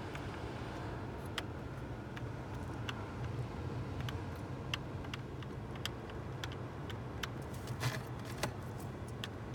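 Steady hum of a 2010 Ford Focus's cabin blower fan running, with scattered light clicks of the climate control knobs and buttons being worked, two of them stronger near the end.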